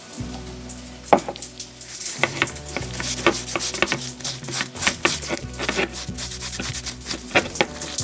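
Cast-iron body of an old manual spice mill being rubbed by hand with a folded pad: a quick run of rubbing strokes, several a second, starting about a second in, over steady background music.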